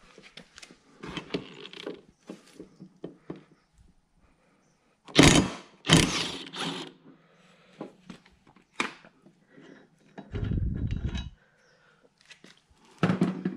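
DeWalt XR cordless impact wrench hammering in short bursts to loosen a riding mower's 5/8-inch blade bolt. The two loudest bursts come about five and six seconds in, with another near the end, between clicks and knocks of handling.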